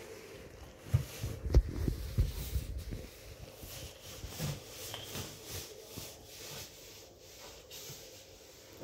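Paper towel being rubbed over the enamel floor of an oven, wiping off grease loosened by steam. A few dull, low thumps come about a second in, the loudest part, followed by quieter rubbing.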